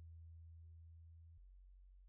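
Near silence: a faint low hum that drops to a lower pitch about one and a half seconds in, fading away.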